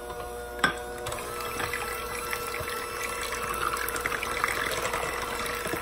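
Five-speed electric hand mixer running steadily on its third speed, its beaters churning through raw eggs and soft butter, with a single clack about half a second in.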